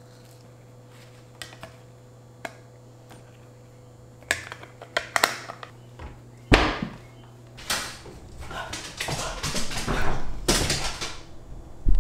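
Kitchen work sounds over a steady low hum: a few light clicks, then sharper knocks and clatter of utensils and cookware with a loud thump about halfway, growing busier. A heavy door thunk comes near the end.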